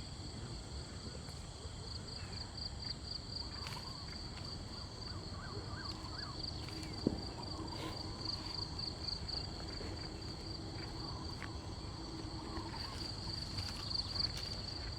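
Steady high-pitched chorus of insects, a continuous finely pulsing trill, with a single sharp click about seven seconds in.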